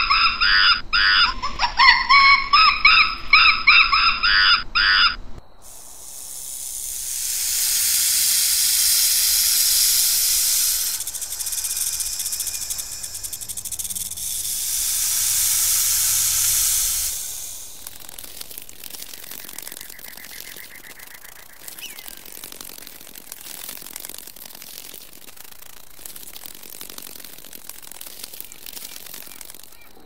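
A drill monkey gives a rapid run of repeated, high calls for about the first five seconds. Then an indigo snake hisses in two long swelling hisses. A fainter steady hiss with faint ticks follows.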